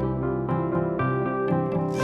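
Background music: a piano or keyboard playing steady, evenly paced notes.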